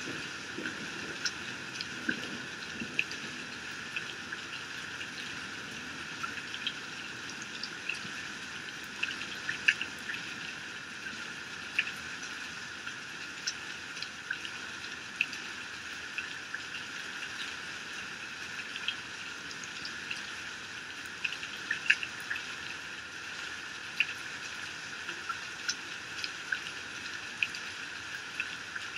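Heavy rain falling: a steady hiss with frequent sharp splats of drops hitting.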